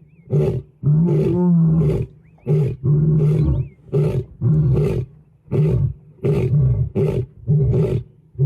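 A large animal's roaring bout: one long, deep roar, then a run of shorter grunting calls at about two a second.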